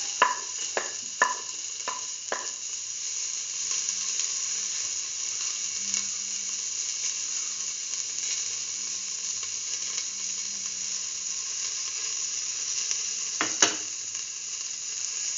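Sliced red onion sizzling in hot oil in a metal pan, a steady frying hiss. A few light knocks in the first couple of seconds as the pieces are tipped in from a plate, and one sharp knock near the end.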